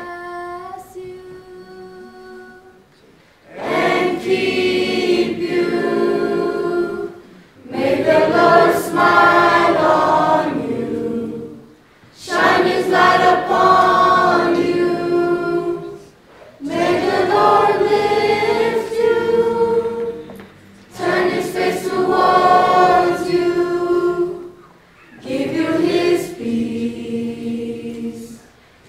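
Choir of teenage boys and girls singing together, in phrases of about four seconds with short breaks between. A single held note is heard in the first couple of seconds, before the full choir comes in.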